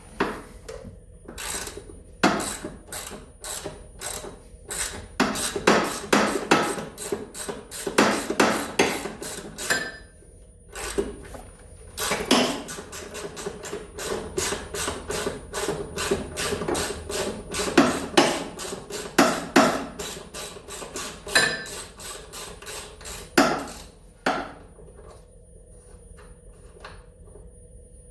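Hand ratchet with a 14 mm socket clicking in quick, repeated strokes as an engine-mount bolt is worked loose. There is a short pause about ten seconds in, and the clicking stops a few seconds before the end.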